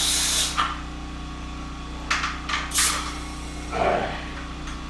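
Portable generator running with a steady hum, and short hisses of compressed air at the start and again about two seconds in.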